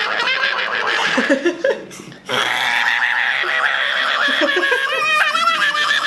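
A person making playful vocal mouth noises, giggly and laughter-like at first, then after a short break a long held pitched sound that turns into a fast wobbling trill near the end.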